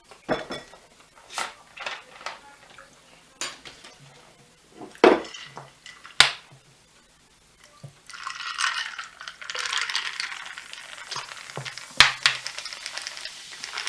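Metal utensil clinking against a frying pan in sharp, scattered knocks; about eight seconds in, french fries start sizzling in the pan, with more clinks over the sizzle.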